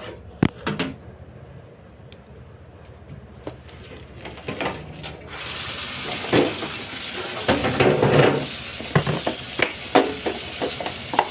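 Things being knocked and clattered about in a kitchen sink while being washed; about halfway through, the tap starts running with a steady hiss, and the clatter continues under the water.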